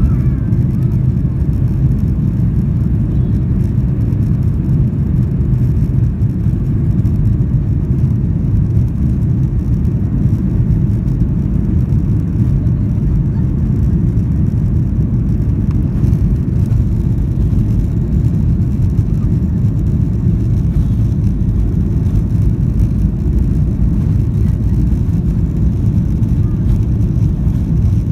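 Steady low rumble of an airliner's engines and airflow heard inside the passenger cabin during takeoff.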